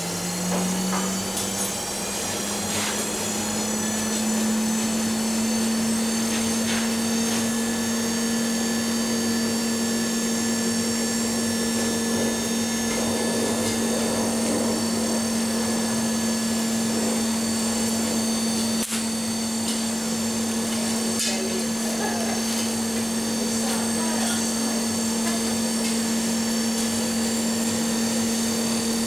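Electric blower on a solid-fuel blacksmith's forge starting up, its hum rising in pitch over the first few seconds and then running steadily, with a few faint taps.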